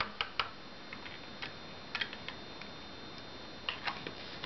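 Light plastic clicks and taps in small irregular clusters as a round plastic tub of decoupage varnish is handled and opened on the table.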